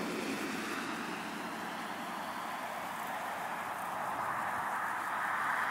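Steady rushing background noise with no distinct events, like an outdoor ambience of distant traffic or wind.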